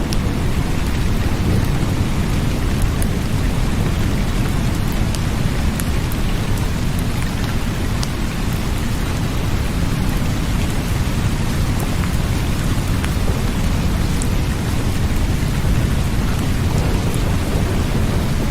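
Steady heavy rain with a continuous deep rumble underneath, which sounds like thunder, and scattered drop ticks on top.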